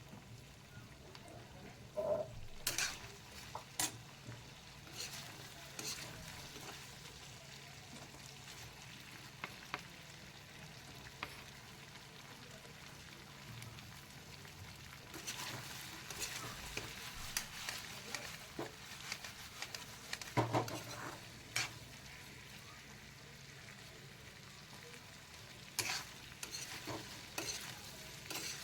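Chicken frying with a steady sizzle in a pan while a spatula stirs it, scraping and clinking against the pan in several short spells.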